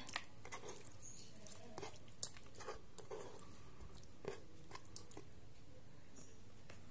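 Faint soft, wet handling sounds and a few light clicks as raw chicken pieces are picked up from a wooden cutting board and moved into a plastic bowl with a metal spoon; the clearest click comes about two seconds in.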